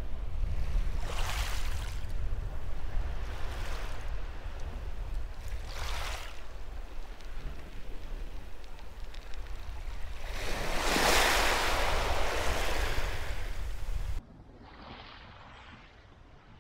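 Small waves washing up and back on a shingle beach, a swash every couple of seconds with a bigger, longer one about ten seconds in, over a low wind rumble on the microphone. Near the end the sound cuts to a much quieter, fainter surf.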